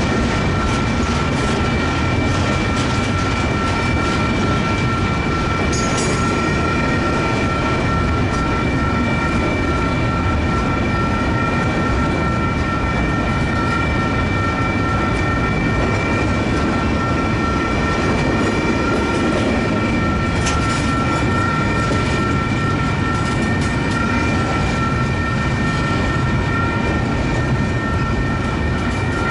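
Double-stack container well cars of a freight train rolling past close by, a steady rumble of wheels on rail with a few brief clatters. A steady high whine sits over the rolling noise.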